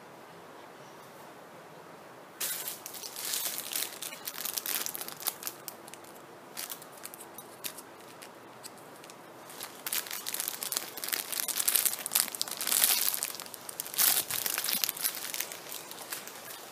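Plastic wrapping crinkling as squishy toys are handled, in irregular bursts that start about two seconds in and come in several bouts.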